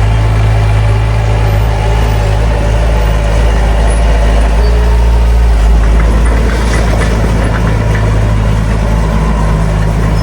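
The diesel engine of a heavy earthmoving machine running steadily with a deep, even drone, with a few faint clinks about six to seven seconds in.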